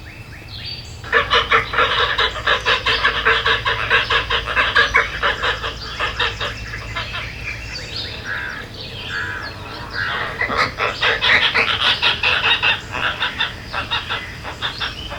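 Birds calling in a rapid, dense series of short notes, starting about a second in, over a faint steady low hum.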